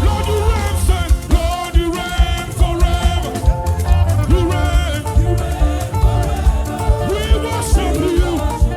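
Live gospel band playing an upbeat groove, with heavy bass and a steady drum beat under melodic instrument lines.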